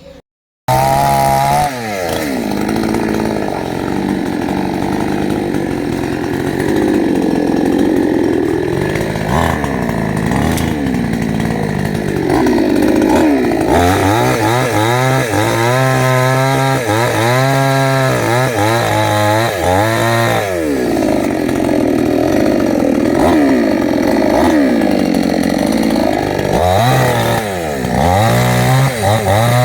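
Two-stroke chainsaw cutting into a jackfruit tree trunk, its engine speed rising and falling again and again as it revs and bogs down in the wood. It starts abruptly just under a second in.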